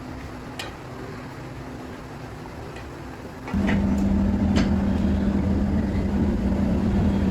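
A machine starts abruptly about three and a half seconds in and runs with a loud, steady hum over a low rumble. A few sharp clicks sound over it.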